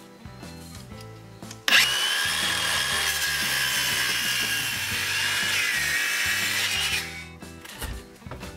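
Cordless Makita circular saw starting about two seconds in and making an angled cut through a hinoki (Japanese cypress) flooring board for about five seconds, its high whine dipping slightly near the end of the cut before it stops. Background music plays underneath.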